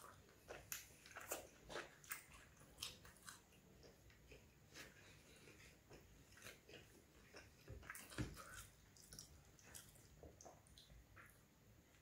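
A person chewing plain roti with curry close to the microphone: soft wet mouth clicks and smacks at an irregular pace, the loudest about eight seconds in.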